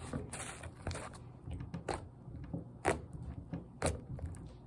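Elmer's Goo slime being poked and squeezed by hand, giving sharp clicks about a second apart.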